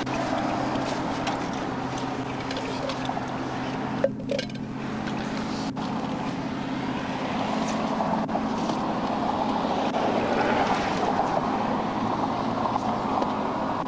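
Steady rush of passing highway traffic, with a low steady hum underneath that fades about eight seconds in, and one sharp click about four seconds in.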